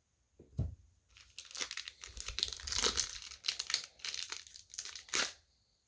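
Foil hockey card pack being torn open, its wrapper crinkling and tearing in repeated crackly bursts that begin about a second in. The pack is hard to open and is being shredded.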